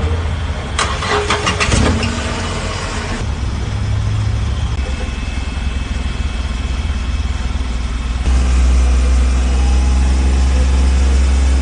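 Renault Kwid's three-cylinder petrol engine starting, with a rattly burst in its first couple of seconds, then running steadily through its exhaust. It gets louder and deeper from about eight seconds in.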